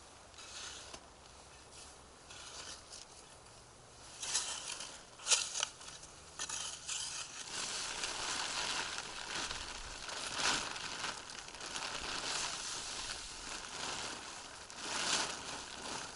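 A plastic tarp rustling and crinkling as it is pulled and spread by hand, with snow crunching underfoot. It starts faint, has a few sharp rustles about four to five seconds in, and is nearly constant from about halfway on, with louder swells.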